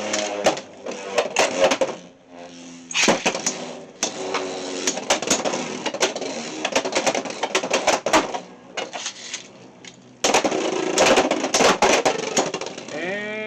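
Beyblade X spinning tops whirring and clashing in a plastic stadium: rapid rattling clicks of collisions over a steady spinning hum. The clashing pauses briefly just before the last few seconds, then comes back loud.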